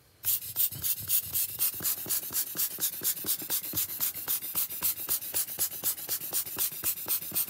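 A hand rapidly patting and pressing a crumpled plastic film onto wet alcohol ink on card, a fast, even run of crinkling, rustling taps that starts just after the opening and keeps going.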